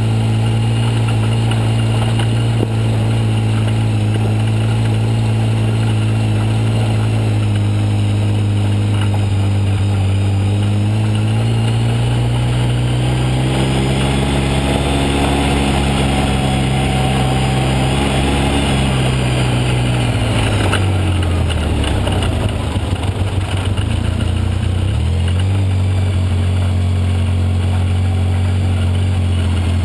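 ATV engine running steadily while riding along a gravel road, its pitch rising midway as it speeds up, then dropping low for a few seconds before settling back to a steady speed.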